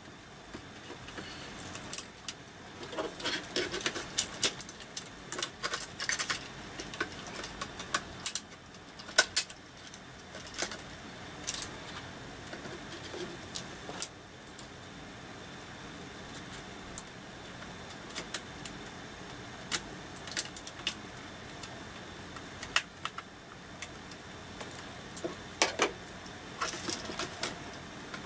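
Plastic housing parts of a metal detector being handled and snapped together, a string of irregular sharp clicks and taps as the flanged catches are fitted into each other.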